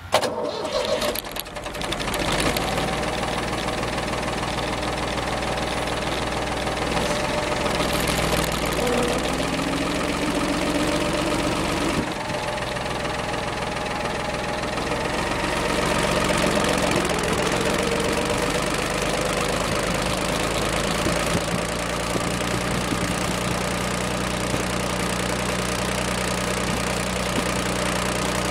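David Brown tractor engine coming in loud with some clattering knocks, then running steadily as the tractor drives along, its pitch rising and falling a little a few times.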